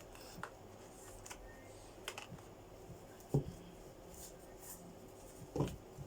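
Deck of oracle cards being handled: scattered light clicks and taps, with two louder knocks about three and a half and five and a half seconds in.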